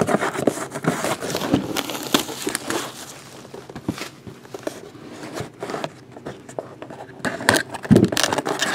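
Plastic shrink wrap crinkling and tearing as it is pulled off a cardboard trading-card box, with scrapes of the cardboard being handled; irregular crackles throughout, loudest near the end.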